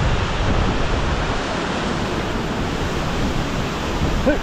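Waterfall crashing down as a loud, steady rushing noise, with wind buffeting the microphone.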